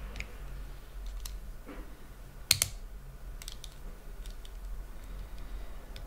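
Small metal clicks and ticks from a half euro cylinder lock and a hand tool as the lock is taken apart, with one sharper click about two and a half seconds in.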